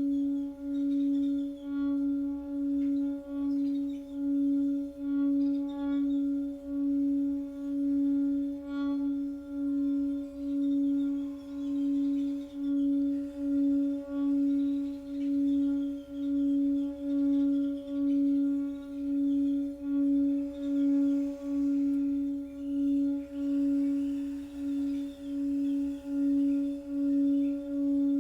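Singing bowl sounding one sustained, steady low tone that swells and fades about once a second.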